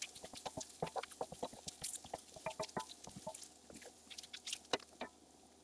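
Wooden spatula stirring and scraping sliced mushrooms around a cast iron skillet: a quick run of clicks and taps against the pan that stops about five seconds in.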